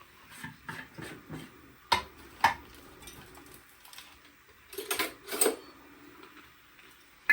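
Kitchen utensils and dishes clattering as they are handled: two sharp knocks about two seconds in, then a short run of clinks and knocks about five seconds in.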